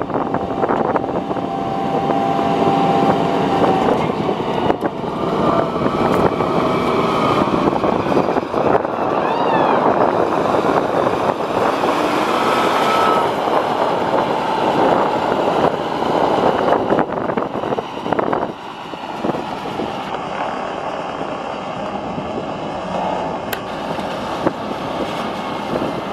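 Wheel loader's diesel engine running steadily as the machine drives over rough dirt with a wrecked car raised in its bucket. The sound eases a little about two-thirds of the way through.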